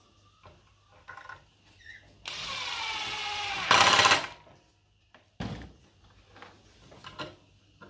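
Cordless drill driving a 75 mm screw through a timber cleat into the hive base: the motor runs steadily for about a second and a half, its pitch sagging a little as the screw bites, then goes louder and harsher for about half a second as the screw drives home. A dull thump follows a second later, with light handling clicks around it.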